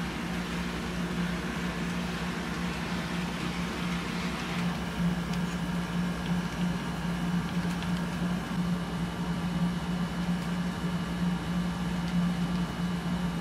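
Steady hum of a room air conditioner, with an HO scale model diesel locomotive running on the track and a few faint ticks from its wheels.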